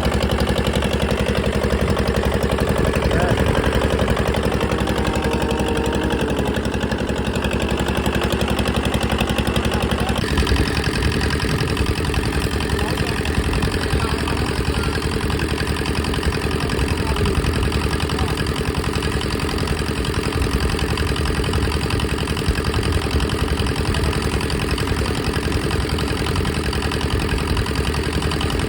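Boat engine running steadily, its tone changing abruptly about ten seconds in.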